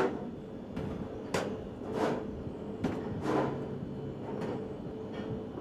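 Spoon scraping and swishing around a copper saucepan in soft, irregular strokes, about one a second, as beaten egg whites are folded into an egg mixture.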